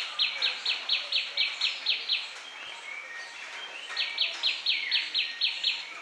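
Common tailorbird calling: a rapid run of short, high, evenly repeated notes, about four to five a second. It breaks off a little after two seconds in and starts again about four seconds in.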